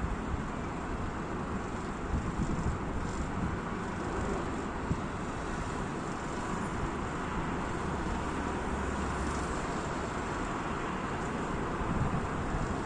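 Steady road traffic noise with cold wind buffeting the microphone, the gusts rising briefly about two seconds in and near the end.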